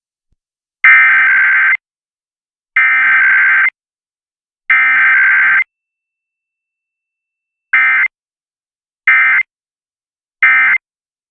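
Emergency Alert System SAME digital data bursts: three header bursts of about a second each, then three short end-of-message bursts, with silence between each burst.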